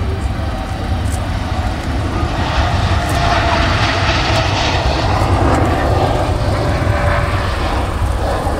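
Boeing 787 Dreamliner's jet engines at takeoff thrust during its takeoff roll, growing louder from about two and a half seconds in as the aircraft passes, over a steady low rumble.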